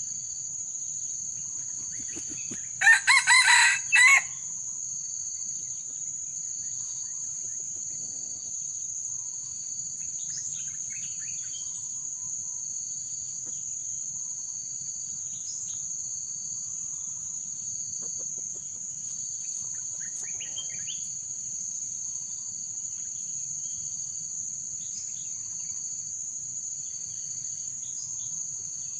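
A rooster crows once, loud and short, about three seconds in, over a steady high-pitched drone of insects.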